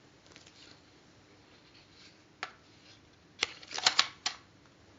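Clicks and handling noise from a View-Master viewer as the next reel is put in: a single click about two and a half seconds in, then a quick cluster of four or five clicks about a second later.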